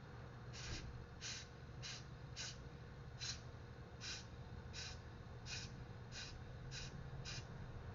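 A rapid, even series of short hissing puffs of air, about a dozen in a row at roughly one and a half a second.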